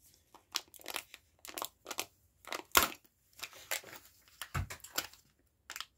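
Foil and plastic packaging of a Kinder Joy egg crinkling and clicking as it is opened and handled: irregular short crackles, with a sharper snap nearly three seconds in.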